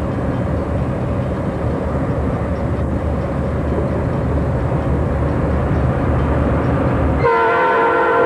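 Amtrak passenger train, led by two EMD F40PH diesel locomotives, rolling across a bridge with a steady rumble. Near the end the rumble cuts off suddenly and a sustained chord of steady tones starts.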